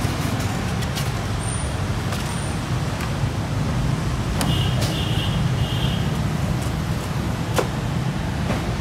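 Steady low rumble of road traffic, with a few light clicks over it.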